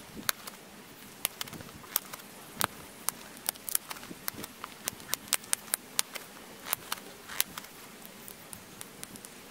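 Pressure flaking of a flint arrowhead: sharp, irregular clicks as small flakes snap off the edge under the flaker's tip. They come about once or twice a second, bunch together about five to six seconds in, and grow sparse near the end.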